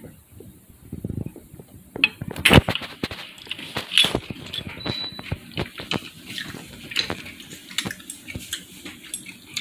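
Eating utensils clicking and clinking against ceramic plates in an irregular series of sharp taps, starting about two seconds in.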